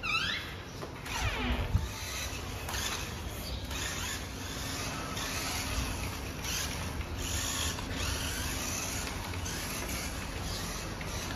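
Battery-powered remote-control toy monster truck: its small electric motor and plastic gearbox whirring in short repeated bursts of throttle as it drives over a stone-tiled floor.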